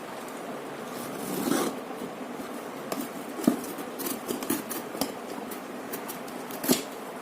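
A cardboard shipping box being opened by hand: scraping and rubbing of cardboard and packing tape, with a few sharp knocks and clicks, a louder scrape about a second and a half in.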